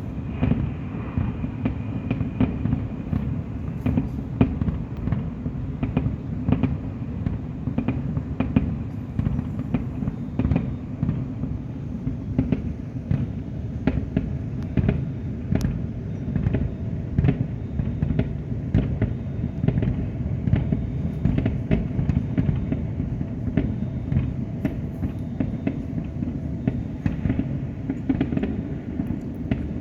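Fireworks display in full barrage: rapid, overlapping bangs and cracks over a continuous rumble of booming shells.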